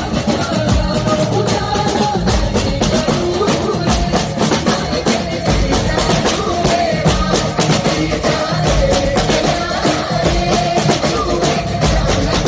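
Several marching snare drums played with sticks in a fast, dense rhythm over loud amplified music with a melody.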